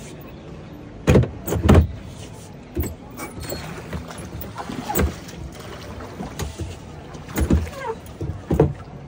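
Oars of a rowboat knocking in their oarlocks as it is rowed. A loud pair of knocks comes about a second in, then scattered knocks follow, bunching together near the end.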